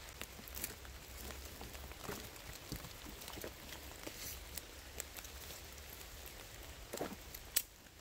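Light rain pattering in the forest, with scattered drops ticking and one sharper tap near the end.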